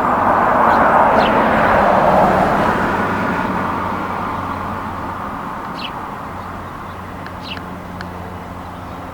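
A road vehicle passing, its tyre and engine noise swelling over the first couple of seconds and slowly fading, over a steady low hum. A few short bird chirps come in the second half.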